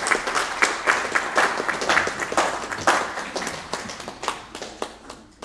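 Audience applauding with many hands clapping, thinning out and fading over the last two seconds.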